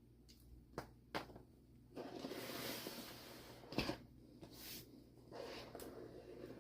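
Laptop packaging being handled and opened: two light clicks, then rustling, a sharp knock and more rustling.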